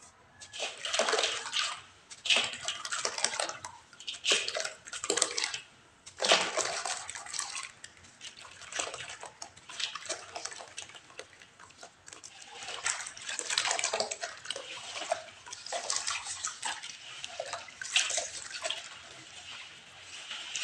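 Water sloshing and splashing in a stainless steel basin as a block of clay soil is dunked and worked by hand, in irregular bursts.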